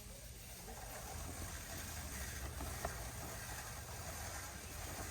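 Shopping cart rolling over a store floor: a steady low rumble under faint store background noise, with one short click near the middle.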